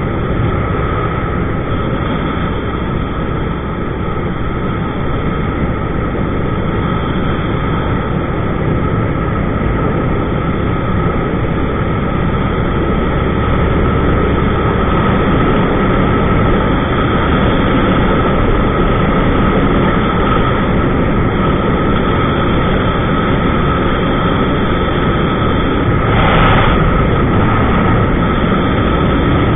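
2000 Suzuki SV650's 645 cc V-twin engine running steadily at road speed, mixed with wind rush over the handlebar-mounted camera's microphone. The sound grows slightly louder partway through, with a brief burst of hiss near the end.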